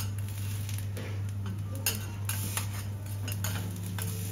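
Metal utensils clinking and tapping in an irregular series of sharp clicks, over a steady low hum.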